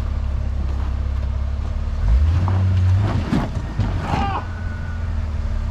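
Jeep engine running at low speed on a rock trail. About two seconds in the revs rise for about a second, and a few knocks and crunches follow around three to four seconds in.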